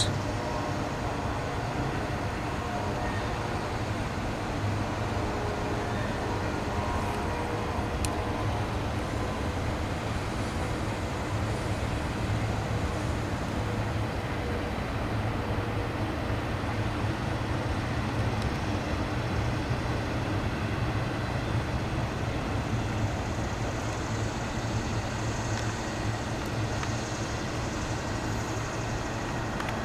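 Freight train rolling past: a steady rumble of wheels and cars. A few faint tones fade out in the first several seconds.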